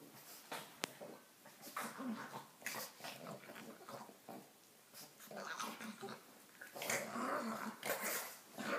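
Pugs play-fighting: irregular bursts of snuffly breaths, grunts and growls, with one sharp click about a second in.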